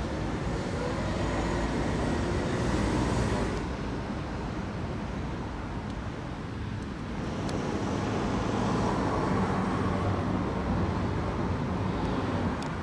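Road traffic passing on a nearby street, a steady rumble that swells and fades twice as vehicles go by.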